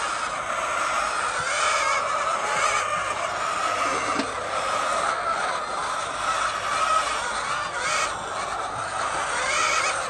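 A flock of hens clucking and calling over one another in a steady, unbroken chorus.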